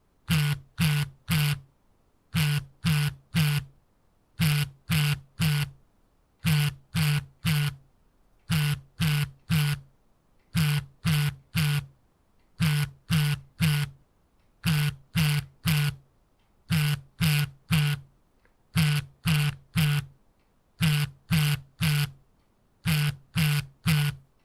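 Smartphone on vibrate, buzzing in repeated bursts of three short pulses about every two seconds, the pattern of an incoming call.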